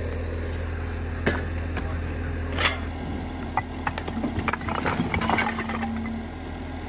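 Bobcat T190 compact track loader's diesel engine running steadily as its bucket tips out a load of stones. There are a couple of sharp knocks, then a clatter of falling rock about four to five and a half seconds in.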